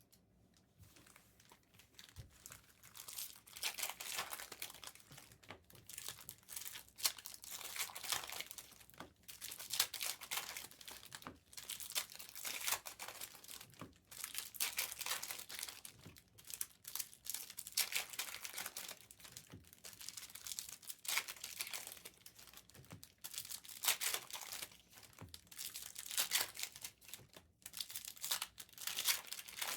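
Trading-card packaging being torn open and handled: plastic and foil wrappers crinkling and ripping in irregular bursts, starting about two seconds in.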